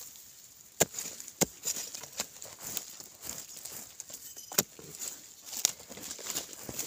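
A hand digging tool chopping into dry, loose soil: several sharp strikes, with gritty scraping and falling earth between them.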